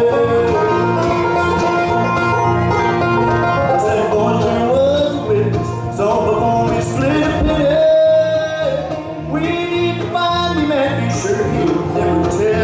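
Bluegrass band playing live: banjo, acoustic guitar and mandolin, with a bending melody line over the chords and a long held note about halfway through.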